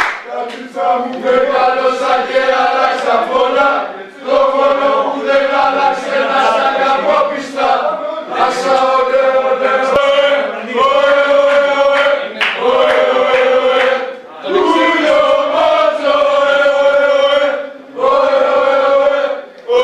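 Choral chanting: a group of voices singing in unison in long held phrases, each a few seconds long, with short breaks between them.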